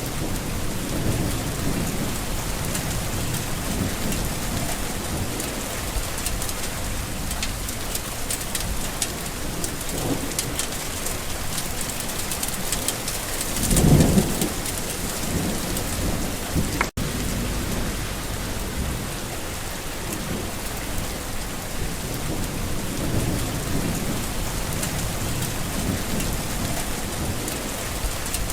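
Steady rain falling, with low rumbles of thunder. A louder thunder peal comes about halfway through, and the sound drops out for an instant a few seconds later.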